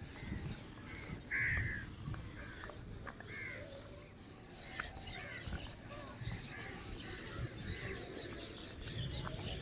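A flock of house crows cawing: many short, harsh calls overlapping, with the loudest about a second and a half in.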